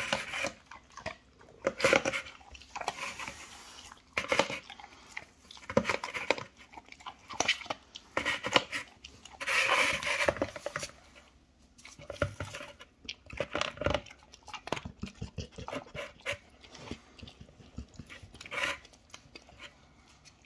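Chocolate Labrador eating kibble from a plastic slow feeder bowl: irregular bursts of clicking as food and muzzle knock against the plastic fins, with chewing and snuffling in between.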